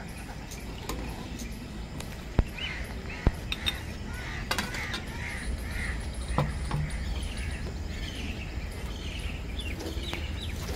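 A bird calling in a run of short harsh caws, thickest through the middle, over a low steady rumble. Two sharp knocks come about a second apart just before the calls start, and they are the loudest sounds.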